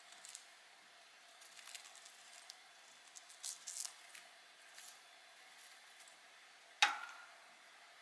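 A budgie's beak nibbling and crunching a balsa wood chip: quiet scattered crackles, busiest a little past the middle. One sharp knock near the end is the loudest sound.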